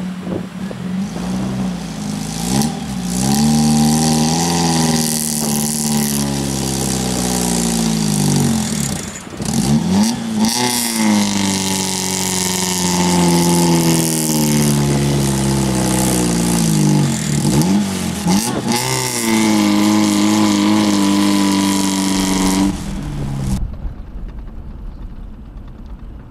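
Old two-wheel-drive Toyota's engine revving hard and rising and falling in about three long pushes, as the car struggles stuck in soft sand with its rear wheels spinning. Near the end this gives way to a lower, steadier rumble.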